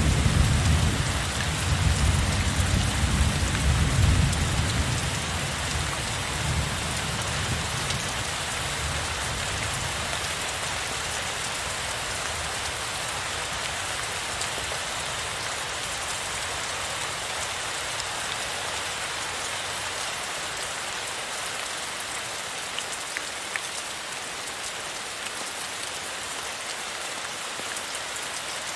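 Heavy rain falling steadily. A low rumble of thunder dies away over the first few seconds.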